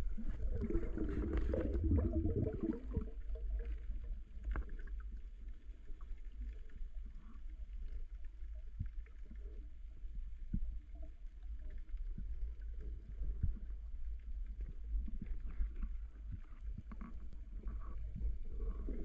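Muffled underwater sound picked up by a spearfisher's camera: a steady deep rumble of water moving around the housing, with a louder swirling rush in the first few seconds and scattered small clicks and knocks.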